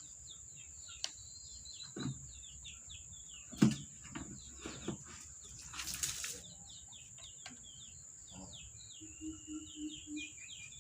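Birds chirping in a rapid run of short high notes over a steady high-pitched whine. A few sharp knocks cut through, the loudest about three and a half seconds in, with a brief hiss around six seconds and five short low notes near the end.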